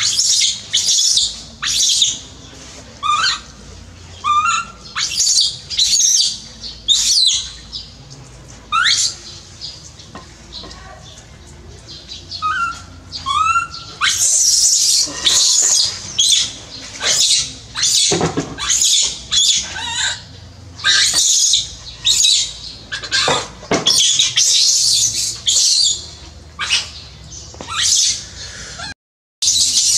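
Baby macaque crying in distress: one shrill scream after another, about one or two a second, with a few shorter cries that bend up and down in pitch.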